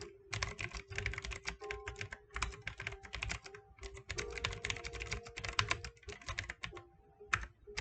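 Fast typing on a GAMDIAS Hermes M5 mechanical keyboard, a dense run of key clicks that thins to a few separate keystrokes near the end.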